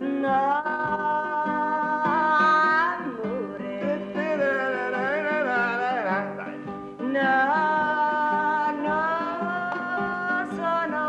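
A woman singing long, held notes to an acoustic guitar, with a more wavering phrase in the middle.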